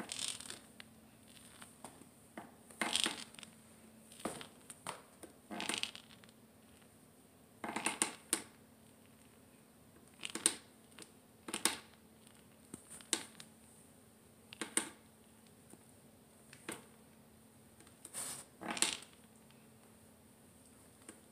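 Arthritic knee joint crunching and cracking with each bend, about a dozen separate gritty crunches a second or two apart. It is the crepitus of bone-on-bone osteoarthritis in a knee that needs replacing.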